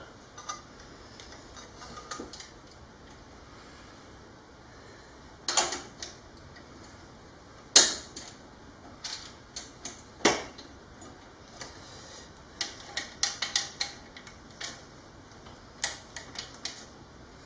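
Metal hand tools and fittings clinking and knocking while the exhaust is fitted and tightened on a motorcycle: scattered sharp clicks, one loud knock about eight seconds in, and a quick run of clicks about thirteen seconds in.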